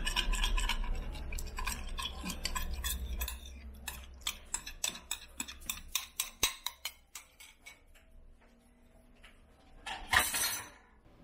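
Silicone spatula scraping and tapping against a small glass bowl, clinking on the rim as a rice flour slurry is emptied into a stainless steel pot, with a run of sharp taps in the middle. A brief louder clatter comes about ten seconds in.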